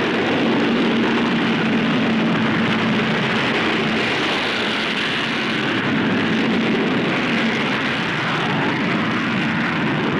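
Avro Vulcan B.2's four Bristol Siddeley Olympus jet engines at full power on takeoff: a loud, steady jet roar with a steady low hum running through it.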